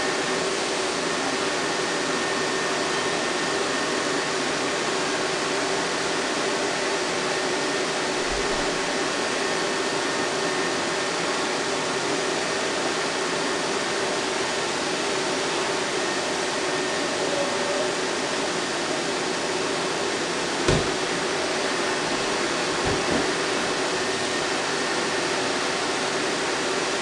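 Aldi vacuum cleaner running steadily, a constant rush of air over a motor hum with a few fixed tones. A short low thump about two-thirds of the way in, and two fainter ones soon after.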